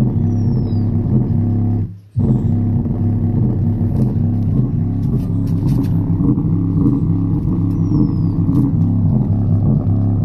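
Loud music with a heavy, deep bass line played through a Harman Infinity Primus 12-inch subwoofer in a ported box. The sound cuts out for a moment about two seconds in, then comes straight back.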